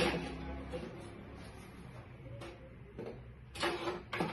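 Toiletry bottles and containers clicking and knocking against wooden cabinet shelves as they are lifted out one by one: one sharp knock at the start, then scattered lighter knocks, a few close together near the end.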